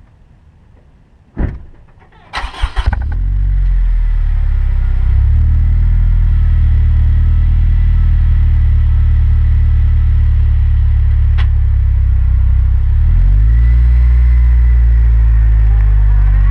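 A thump, then a 2005 Honda Civic Si's 2.0-litre four-cylinder cranks for about half a second and catches, settling into a steady idle heard at the tailpipe of a Tanabe Medallion cat-back exhaust. The idle note rises slightly near the end.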